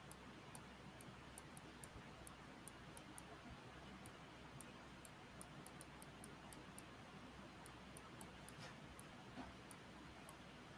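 Near silence with a low hiss and faint, light, high clicks at irregular intervals, sometimes two or three a second, from handwriting strokes being drawn on a screen with a pen input.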